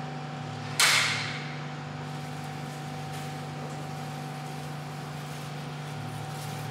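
Plastic wheelie-bin lid dropped shut with a single loud bang about a second in, over a steady low hum.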